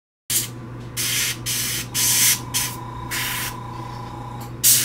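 Airbrush spraying paint in about seven short hissing bursts as the trigger is pressed and released, over a steady low hum.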